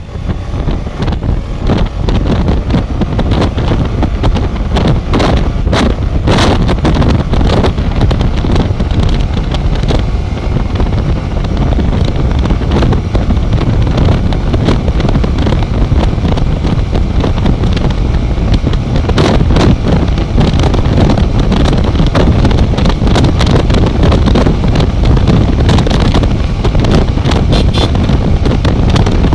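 Heavy wind buffeting on the microphone of a Suzuki GS150R motorcycle under way, over its single-cylinder four-stroke engine running at high revs as the bike speeds up past 100 km/h.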